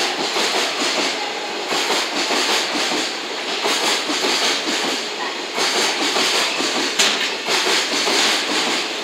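Freight train's container flatcars rolling past close by: a continuous rumble and clatter of steel wheels on rail, swelling and easing about every two seconds, with one sharp knock about seven seconds in.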